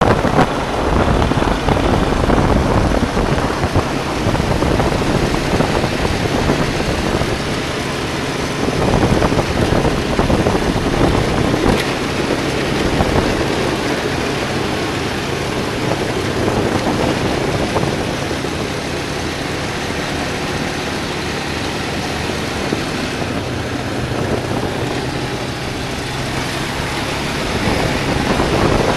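ATV engine running steadily while riding, with wind rushing over the microphone.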